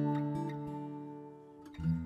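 Background music played on plucked acoustic guitar. The held notes ring and fade away, and new notes are struck near the end.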